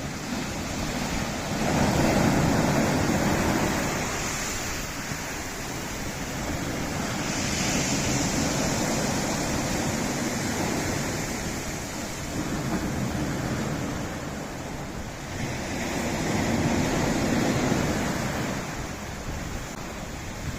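Sea waves breaking and washing over a rocky shore: a steady rush that swells three times, about two seconds in, around eight seconds and near seventeen seconds.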